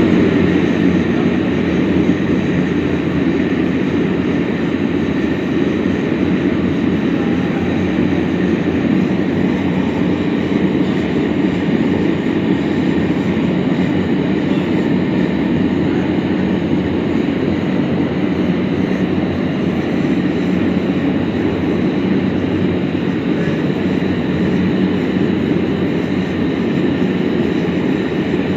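Open hearth forge burner running steadily, a constant loud rushing noise that holds unchanged throughout.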